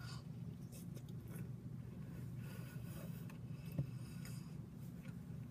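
Quiet chewing of a bite of cookie, with faint scratchy handling noises, over a steady low hum; a single sharp click about four seconds in.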